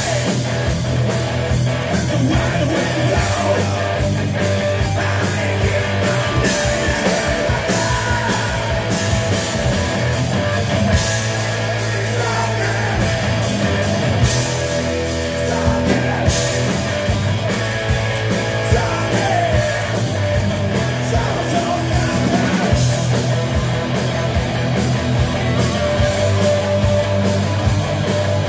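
Live rock band playing with distorted electric guitars, bass and drums, with some singing. Loud and continuous, heard as an amateur recording of a concert.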